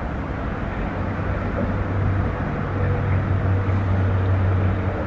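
Low, continuous vehicle rumble with a deep steady hum that swells from about two seconds in, then eases off near the end.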